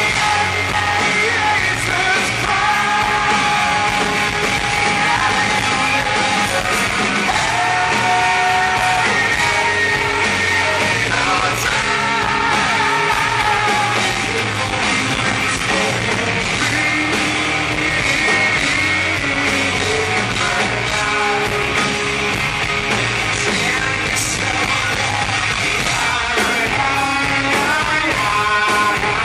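Live rock band playing: a male lead singer sings over electric guitar and drums.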